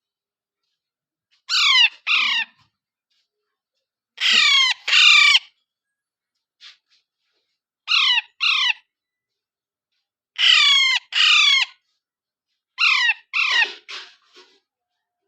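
A parrot squawking in harsh double calls, five bouts a second or two apart; the last bout trails off into a few shorter, fainter calls.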